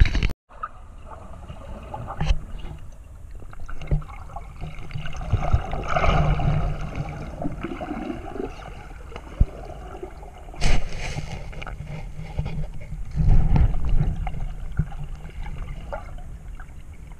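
Muffled underwater sound of pond water moving around a submerged camera as a diver swims close by, with swells of bubbling and sloshing about a third of the way in, near two-thirds and near the end, and a few sharp knocks.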